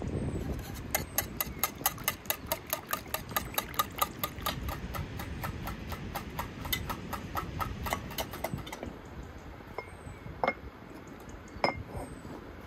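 Metal wire whisk beating eggs and flour in an enamel bowl, its wires clinking against the bowl in a quick steady rhythm of about four to five strikes a second that stops about nine seconds in. Two or three single knocks follow near the end.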